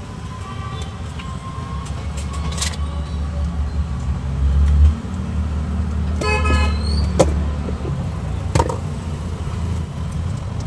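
Road traffic with a steady low engine rumble that swells about four seconds in as a vehicle passes close, and a vehicle horn honking for about a second around six seconds in. A few sharp clinks of a steel ladle against the serving pots.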